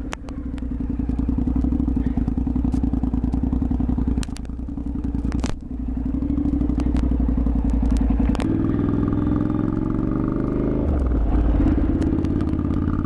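Motorcycle engine running under way, with two short drops in level about four and five and a half seconds in, and a change in its note about eight and a half seconds in.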